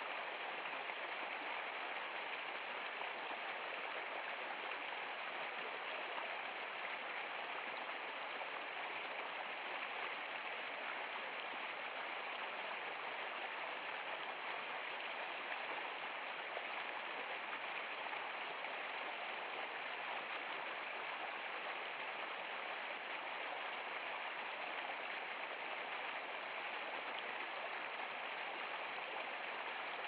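Small stream rushing over rocks, a steady, even splashing rush of water.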